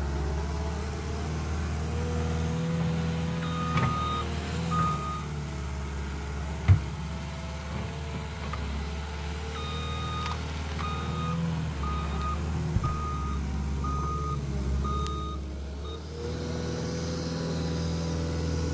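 Cat 289D compact track loader's diesel engine running and working, its pitch shifting as it moves, with its backup alarm beeping in two runs of steady beeps while it reverses. A single sharp knock about a third of the way in is the loudest sound.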